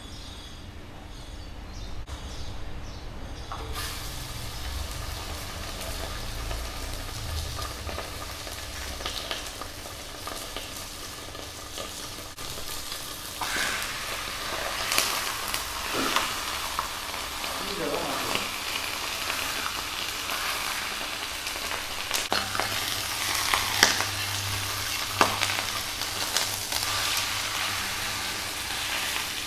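Pork sizzling and frying on a hot grill, starting a few seconds in and growing louder and busier from about halfway, with occasional sharp clicks.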